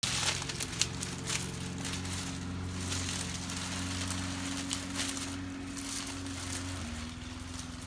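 Scattered crackles and rustles of dry palm-leaf thatch over a steady low mechanical hum, whose pitch drops slightly near the end.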